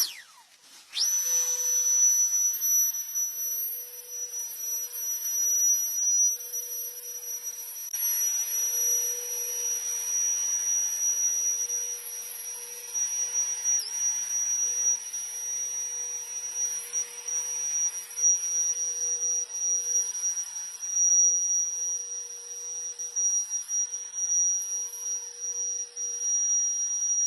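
Turbo fan running with a steady, very high-pitched whine over a hiss of rushing air, after a quick spin-up about a second in; the pitch dips briefly about halfway through.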